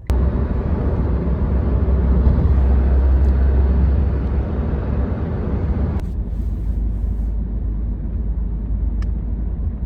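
Steady road and engine rumble inside a moving car, heaviest in the low end. It shifts abruptly about six seconds in, when the deepest rumble drops away.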